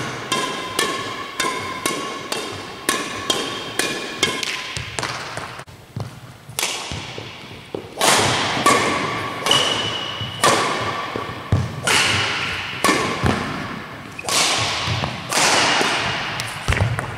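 A feathered shuttlecock struck again and again with Yonex Astrox 88 Pro badminton rackets strung with X-Bolt 63 string. Each hit is a sharp crack with a short ringing ping from the strings, echoing in a large sports hall. The hits come quickly at first, grow softer for a few seconds, then come louder and evenly spaced, somewhat under two a second.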